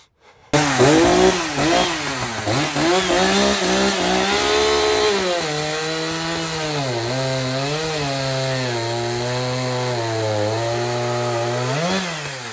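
Echo CS-590 two-stroke chainsaw, upgraded with a CS-620 carburettor and ignition coil and freshly tuned, ripping through a log at high revs. Its engine pitch dips under load and recovers. It rises briefly near the end, then the sound fades away.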